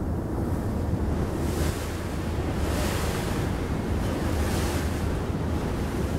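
Wind buffeting the microphone over river water: a steady low rumble with a hiss that swells and fades every second or so.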